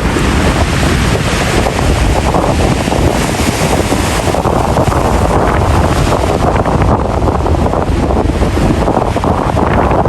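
Ocean waves and surf under heavy wind buffeting the microphone: a loud, steady rush with a strong low rumble.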